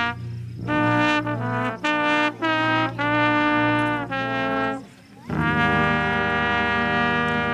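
Trumpet and trombone playing together in a series of short held chords, pausing briefly about five seconds in, then one long held chord.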